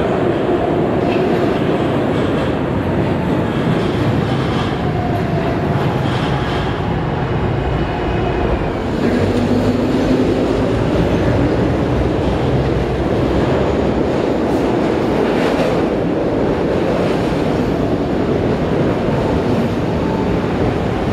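SEPTA Market-Frankford Line subway trains running through an underground station with continuous loud train noise. One train moves off past the platform and another comes in along the same track, with a brief low steady tone about halfway through.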